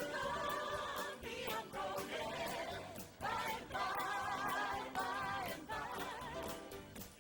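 A group of singers sing held, wavering notes together in harmony over a backing track with a steady beat.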